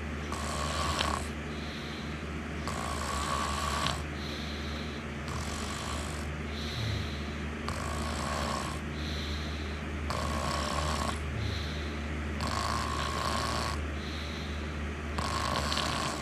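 A sleeping person snoring in a steady rhythm, a snore about every two and a half seconds, each followed by a quieter breath out, over a constant low hum.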